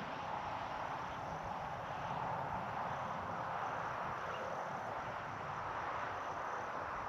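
Steady outdoor ambience: an even hiss with no distinct events.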